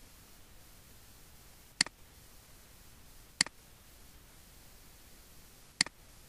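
Three sharp computer mouse clicks, evenly loud, about a second and a half and then two and a half seconds apart, the last one doubled, over faint steady hiss.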